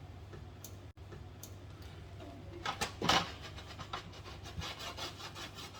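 Hand rubbing and scraping at stuck-on, dried residue on the bottom of a refrigerator, in irregular strokes with a few louder ones about three seconds in.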